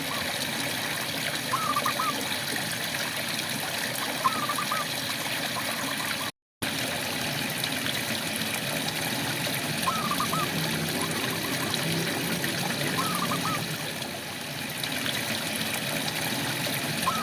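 Steady rain with a frog giving short chirping calls every few seconds. The sound cuts out for a split second about six seconds in.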